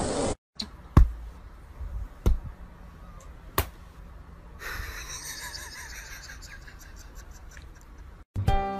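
Three sharp taps about a second and a quarter apart, hands being patted down onto a stack of hands with a cat's paw joining in, then a soft hiss. Music starts just before the end.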